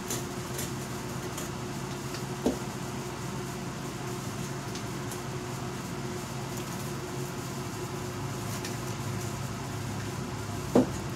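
A steady mechanical hum, like a fan or air conditioner running, with faint scattered ticks. A short squeak-like blip comes about two and a half seconds in, and a louder one near the end.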